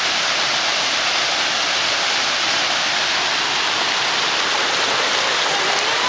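Small waterfall's water rushing and splashing steadily over rocks.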